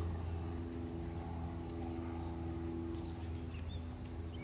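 A steady low mechanical hum with several steady tones over it, unchanging throughout.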